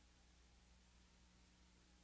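Near silence: only a faint steady low hum and hiss.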